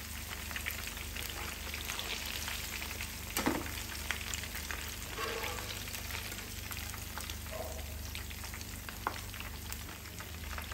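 Breadcrumb-coated prawns and curry leaves deep-frying in hot oil: a steady bubbling sizzle with scattered crackles.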